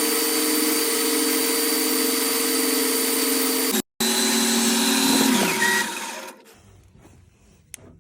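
Metal lathe's electric motor running steadily with a whine, then switched off and winding down, its pitch falling away about five and a half seconds in.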